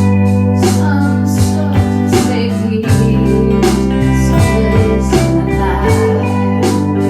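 Blues-style band music: guitar over held bass notes and a steady drum beat.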